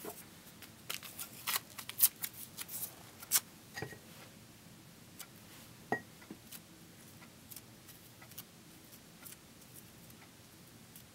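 Paper crinkling and rustling as small pieces of paper are handled and shaped by hand: a quick run of crisp crackles in the first few seconds, then only scattered soft ones.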